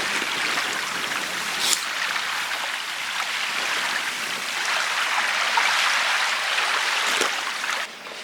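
Steady rushing, water-like noise with a faint click about two seconds in; it drops away abruptly near the end.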